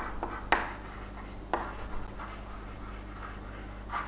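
A few sharp taps, three in the first second and a half, then soft scratching, as of a pen tapping and writing on a surface.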